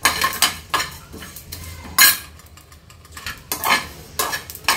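Steel spoon stirring and scraping cumin and coriander seeds around a dry steel pan while they roast, a run of irregular metal scrapes and clinks. The loudest scrape comes about two seconds in, followed by a short lull.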